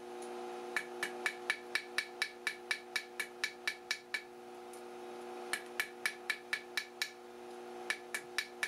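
Blacksmith's hand hammer striking a hot quarter-inch steel rod on the heel of an anvil, drawing out a square taper for a nail. Quick, even blows come about four a second in three runs with short pauses between, over a steady hum.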